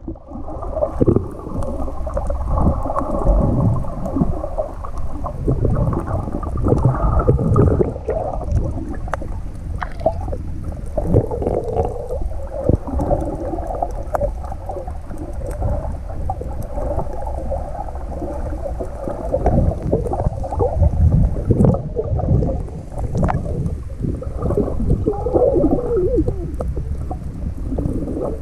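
Muffled water sound picked up by a camera held underwater: irregular low sloshing and gurgling that swells and fades, with a faint steady hum under it for most of the time.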